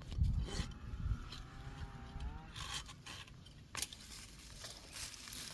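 Scraping and a few sharp clicks from olive branches being cut during pruning, with a faint voice in the background about a second in.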